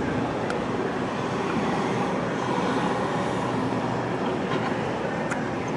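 Steady mechanical rumble of background machinery, with a couple of faint light clicks.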